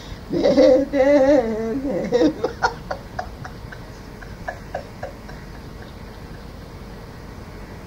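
A woman singing a Karelian lament (itkuvirsi): a long wavering note ends a sung line and breaks into a run of short sobbing catches that fade out by about five seconds in. Steady hiss from the old recording remains after that.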